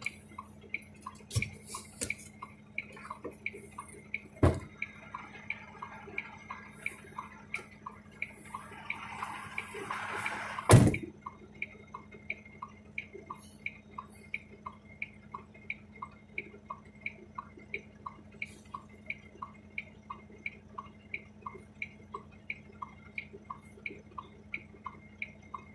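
Turn-signal flasher ticking steadily in a truck cab, about two ticks a second, over the steady low hum of the idling truck engine. A single loud knock comes about eleven seconds in, just after a short rising hiss.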